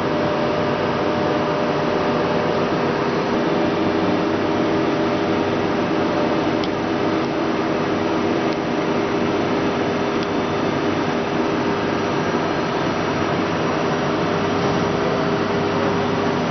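Okuma LB-15 CNC lathe running: a steady machine hum with a constant whine that doesn't change pitch, and a few faint ticks.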